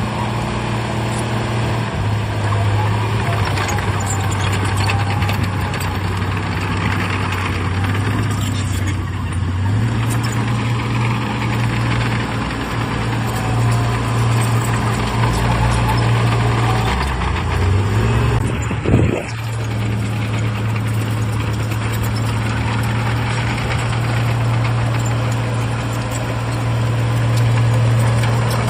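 Diesel engine of heavy earthmoving machinery running steadily under load, with clatter over a deep hum. About two-thirds of the way through, the engine note drops, then swings back up with a brief loud peak.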